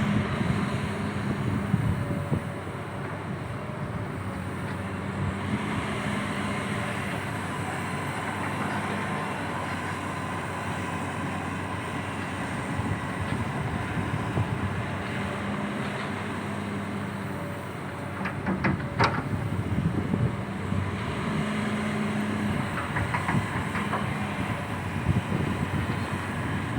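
XCMG XE215C excavator's diesel engine running steadily, with a few sharp metallic clanks about two-thirds of the way in.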